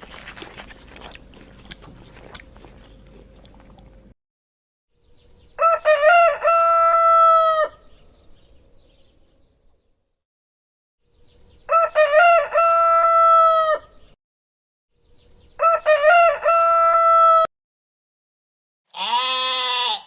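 Rooster crowing three times, each crow about two seconds long and a few seconds apart.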